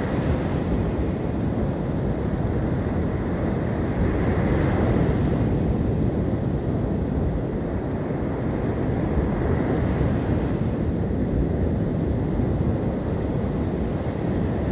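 Sea surf washing onto a beach, a steady rush that swells a little about four seconds in, with wind rumbling on the microphone.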